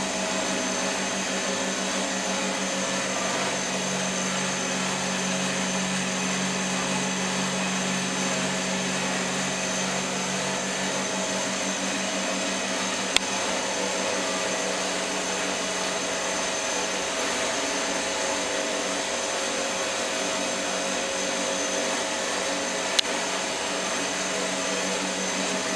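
Laboratory machinery running with a steady hum and whir, unbroken throughout. Two short sharp clicks, one about halfway through and one near the end.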